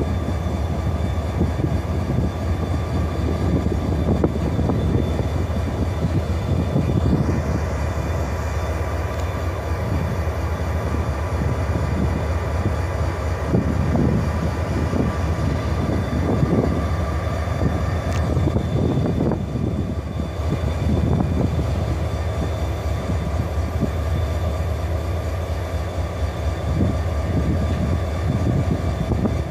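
EMD SD40-2 diesel-electric locomotives, their 16-cylinder two-stroke engines running with a steady low rumble as the units roll slowly past, with the sound of wheels on the rails.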